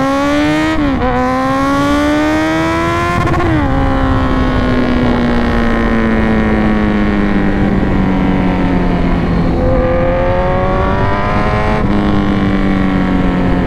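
Kawasaki Z900's inline-four engine pulling hard, its pitch climbing and dropping sharply at two quick upshifts in the first few seconds. It then winds slowly down in pitch as the bike slows, with two sudden jumps in pitch near the end, over a steady rush of wind.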